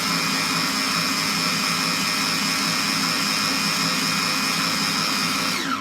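Electric blender running at full speed, mixing a liquid shake of eggs, banana and milk with a loud steady whine. Near the end it is switched off and the whine slides down in pitch as the motor spins down.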